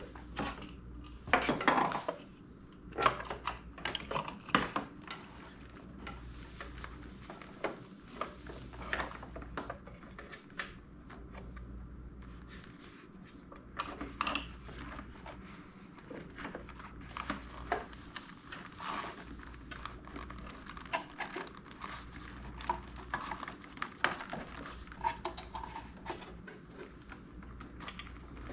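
Irregular metallic clinks, taps and knocks of hand tools and a metal bracket being handled while a fuse box is fastened to a vehicle's firewall, with a few louder knocks.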